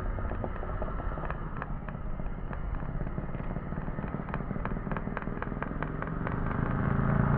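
Small engine of a child's mini motorcycle running, heard from a distance, with irregular sharp crackling pops over it. It grows steadily louder toward the end as the bike comes closer.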